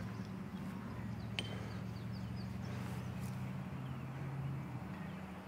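Quiet outdoor ambience with a steady low hum and faint bird chirps; about a second and a half in, a single sharp clink as the putted disc strikes the metal disc golf basket.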